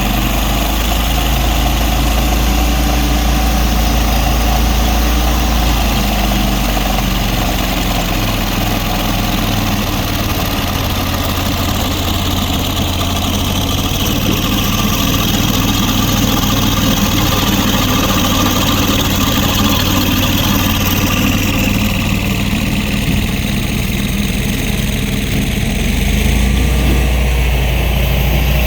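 A heavy engine running steadily at idle, its low hum shifting in pitch about a third of the way in and again near the end.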